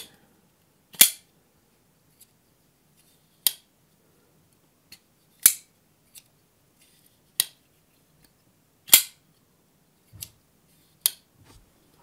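Cheburkov Tukan titanium frame-lock folding knife on a ball-bearing pivot, flicked open by its pin and closed again by turns. Each time the blade locks open it gives a loud sharp snap, three in all, and each closing gives a lighter click, about one sound every second and a half to two seconds.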